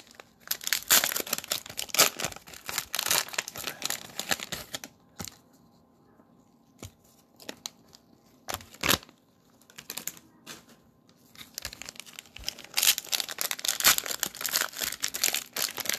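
Cellophane wrappers of Mosaic NBA cello packs being torn open and crinkled by hand. Dense crackling for the first few seconds, then a quieter stretch with a few scattered ticks, then heavy crinkling again for the last few seconds.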